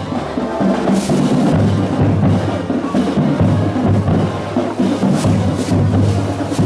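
Music with drums and percussion, a steady low bass line and repeated knocking strokes.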